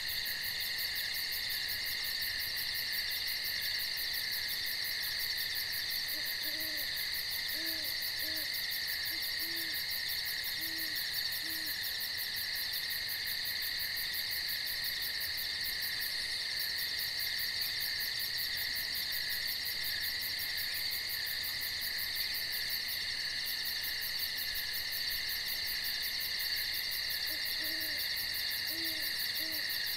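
A steady, shrill chorus of night insects, with an owl hooting: a series of about six short, low hoots in the first half and a few more near the end.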